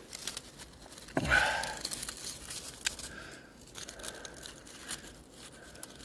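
A raw one-leaf fern (Lepisorus) leaf being chewed: crisp crunching and crinkling, loudest about a second in, then lighter crackles.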